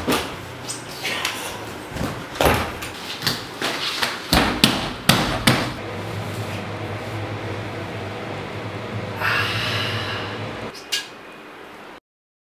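A wooden door pushed open, followed by a run of sharp knocks and clattering handling sounds in a small room. A steady low hum then takes over, with a brief rustle near the end.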